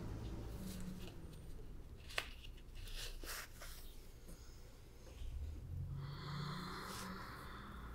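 Quiet room tone with a person's soft breathing, including a slow exhale near the end, and a single faint click about two seconds in.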